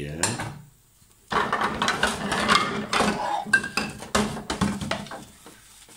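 Dishes being washed by hand: a sponge scrubbing a plastic container and a plate, with knocks and clinks of the dishes, starting about a second in.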